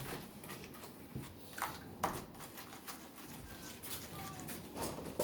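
Homemade slime being handled and pulled apart by hand at a table, with scattered soft clicks and sticky ticks; this batch has too much contact-lens saline activator and keeps breaking apart.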